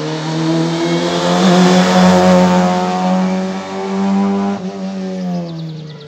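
A race car's engine held at high, steady revs, growing louder to its loudest about two seconds in, then fading away toward the end.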